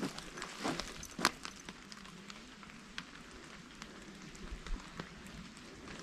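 Footsteps through wet leaf litter and twigs on a forest floor, with a few sharp crackles in the first second and a half, then softer steps under a light patter of rain.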